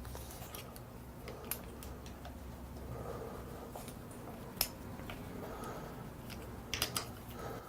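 Faint scattered clicks and light handling knocks of parts being worked at a dirt bike's handlebar and throttle, the sharpest about four and a half seconds in and two more near the end, over a steady low hum.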